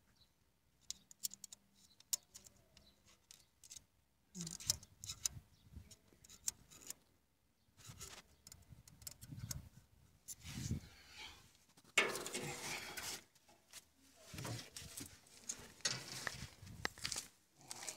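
Light metal clicks and scrapes of a caliper being handled against an engine's injectors and rocker arms, mixed with rubbing handling noise; the loudest is a broad scrape about twelve seconds in.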